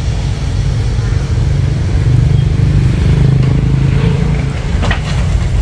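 Chainsaw engine running steadily at a low, even speed, with a couple of faint knocks near the end.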